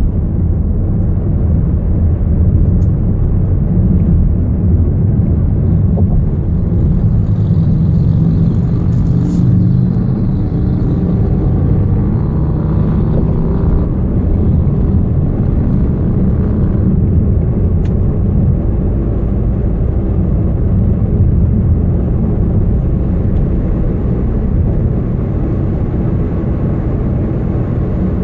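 Volkswagen Jetta TDI driving with a loud, steady low rumble, the constant wobbling rumble that the owner has been chasing; faint rising whine-like tones come in about eight seconds in and fade by about fourteen seconds.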